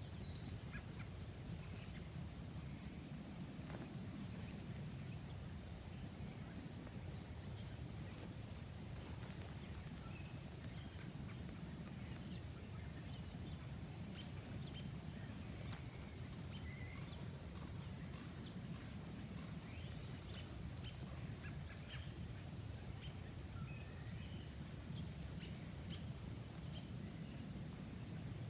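Quiet outdoor ambience: a steady low rumble with faint, scattered bird chirps and calls throughout.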